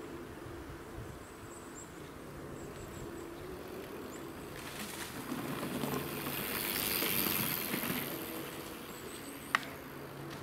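A mountain bike passing close on a dirt forest trail: the rush of its tyres over the dirt swells to a peak about halfway through and fades away. A single sharp click near the end.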